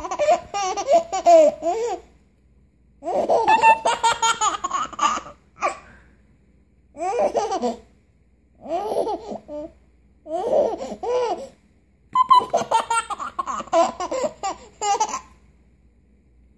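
A young child laughing in about seven separate bouts, each a second or two long, with short pauses between and the longest bout near the end. The child has the hiccups.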